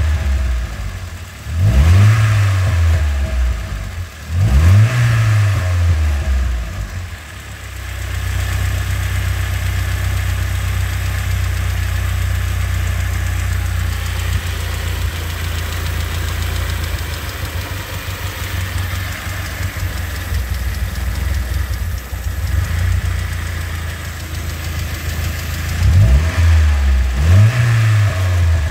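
GAZelle ZMZ-406 inline-four petrol engine, revved in quick throttle blips three times early on, then settling into a steady idle for about twenty seconds, then blipped twice more near the end. The engine is being shown held back, 'choked', by a faulty camshaft position (phase) sensor.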